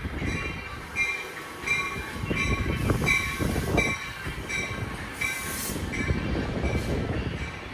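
Train running through the station with its locomotive bell ringing steadily, a little under two strokes a second, over the low rumble of the train. A brief hiss comes about five seconds in.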